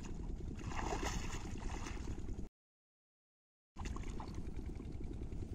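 Shallow water sloshing and gurgling around a wading angler's legs, over a steady low rumble. The sound cuts out completely for about a second midway.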